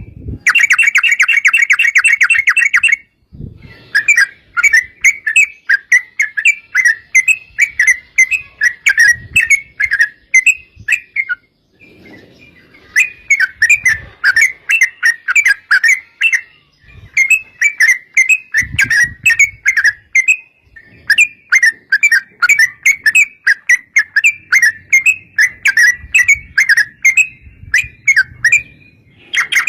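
Yellow-vented bulbul singing long, fast chattering runs of short bubbling notes, several phrases separated by brief pauses: the rapid 'ropel' song used as a lure to set other bulbuls singing.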